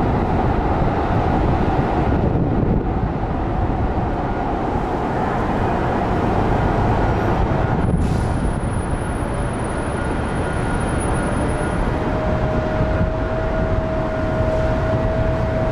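A Metro Rail train running past, a steady rumble with a held whine underneath. A thin high whistle comes in about halfway, and a clearer steady whine takes over near the end.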